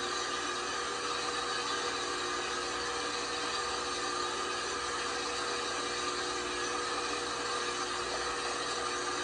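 LG washing machine running with a steady motor whine and hum over a rushing noise, unchanging throughout.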